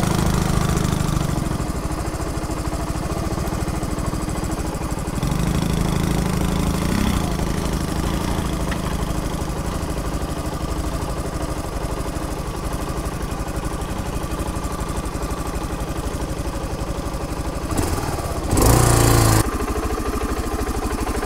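Motorcycle engine running at low speed on a rough trail, its throttle picking up about five seconds in and easing off again, with a short loud rush a couple of seconds before the end.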